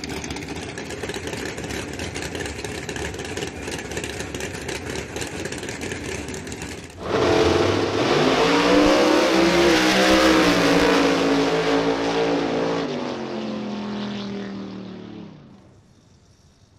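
Pro Stock drag-car V8 running at close range. About seven seconds in, two Pro Stock cars launch at full throttle with a sudden loud blast, their engine notes changing pitch as they run down the track and fading out over the next eight seconds.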